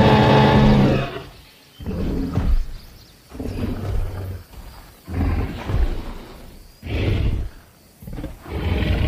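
Dinosaur roar sound effects: a long, loud roar that fades about a second in, followed by five shorter growling roars, roughly one every one and a half seconds.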